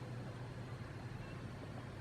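Steady low hum with an even background hiss and no distinct events.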